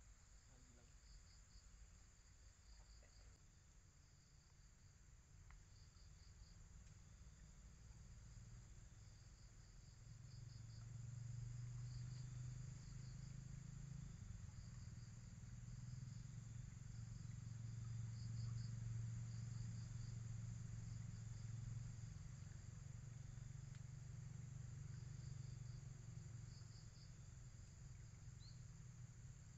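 Faint insects calling: short trains of rapid chirps recurring every second or two over a steady high hiss. A low steady hum swells about a third of the way in and eases near the end.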